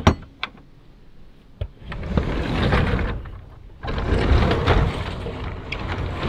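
Rear cargo door of an old box van being unlatched and opened: a sharp metal click from the latch handle at the start, a few lighter clicks, then two stretches of rattling and scraping as the door moves open.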